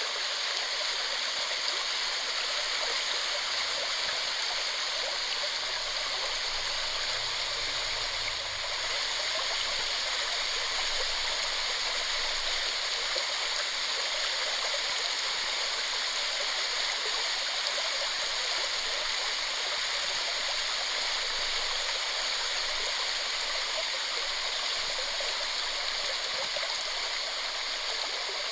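Waterfall: water falling and rushing in a steady, unbroken splash.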